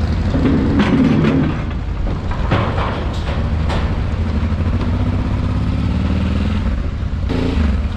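Honda Transalp 600 V-twin motorcycle engine running as the bike rolls off the ferry, with a few knocks as the wheels cross the steel loading ramp in the first seconds, then rising in pitch as it accelerates away.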